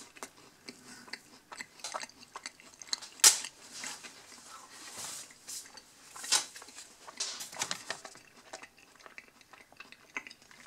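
A person chewing a mouthful of cookie, with irregular small wet clicks and mouth noises and one sharper click about three seconds in.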